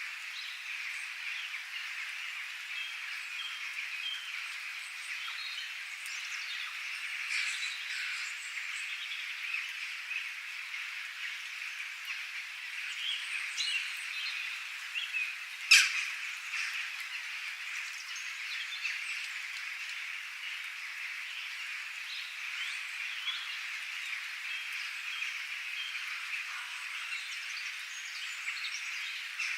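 Birds chirping and calling over a steady, high-pitched chorus of many small calls. One sharp, loud click comes about sixteen seconds in.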